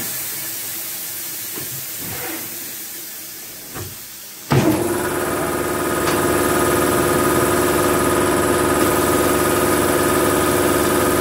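Compressed-air hiss from a tyre changer's pneumatic bead breaker as its blade presses into the tyre sidewall to unseat the bead. About four and a half seconds in, a motor starts suddenly and runs steadily with a hum.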